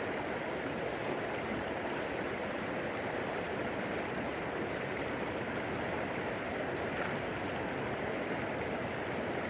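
Creek water flowing, a steady even rush with no breaks.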